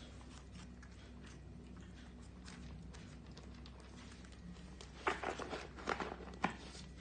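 Pets busy at a red plastic bowl on a wooden floor: faint scattered ticks, then a quick cluster of sharp clicks and knocks about five seconds in.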